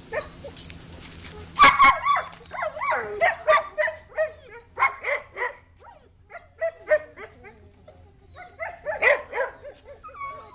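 A dog barking and whining in a long series of short yelps that bend in pitch, the loudest about two seconds in.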